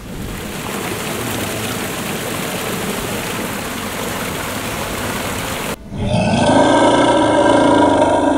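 A steady, loud rushing noise that cuts off sharply about six seconds in, followed by background music with sustained tones.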